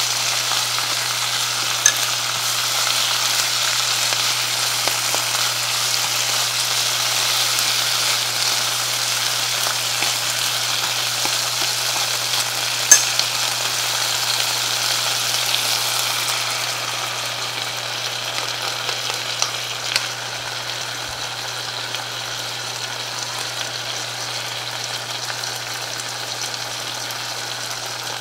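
Pork and komatsuna sizzling as they stir-fry in a frying pan, with a few sharp knocks, the loudest about halfway through. The sizzle eases a little about two-thirds of the way in.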